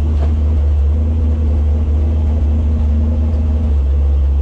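Monster truck's engine idling steadily, a loud low-pitched drone heard from inside the cab.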